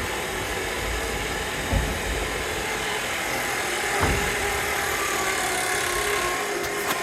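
A machine running steadily, with two dull knocks about two and four seconds in.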